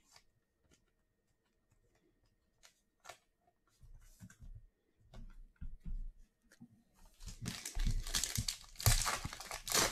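A shiny wrapper of a trading-card pack being torn open and crinkled, loudest from about seven seconds in. Before that come a few light taps and rustles of cards being handled, after a quiet start.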